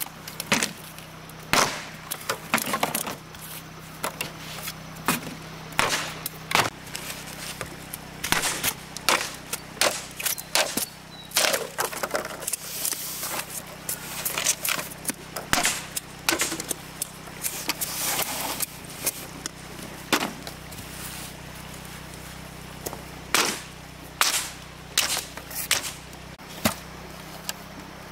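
Bamboo being chopped or struck with a tool: many sharp, irregular cracking knocks, often less than a second apart, with a few short rasping stretches between them.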